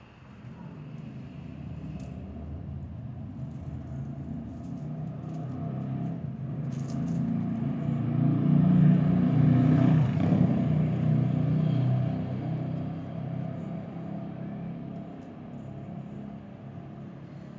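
A motor vehicle going past: its low engine rumble builds to a peak about halfway through, then fades away.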